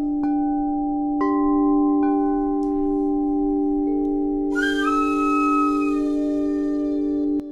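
Ambient instrumental music: a steady held drone with sustained bell-like notes striking in about a quarter second, a second and two seconds in, then a brighter, shimmering swell of higher tones about four and a half seconds in, cutting off just before the end.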